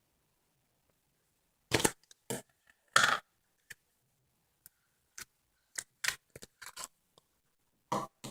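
Slime being squeezed and worked by hand, giving a string of short, irregular wet squelches and pops, starting about two seconds in.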